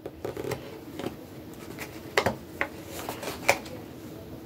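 Box packaging being handled by hand while a card is worked out of it: scattered light scrapes, taps and clicks, the sharpest about two seconds in and again about three and a half seconds in.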